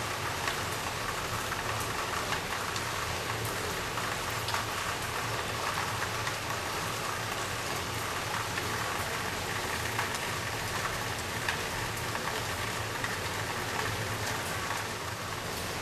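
Steady rain falling on a tiled roof, with scattered drops tapping.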